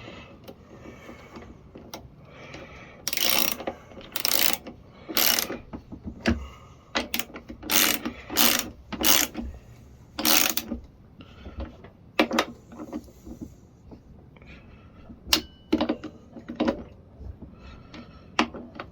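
Ratchet with a 10mm socket clicking in short repeated strokes as bolts are snugged down on the engine, with pauses between bursts.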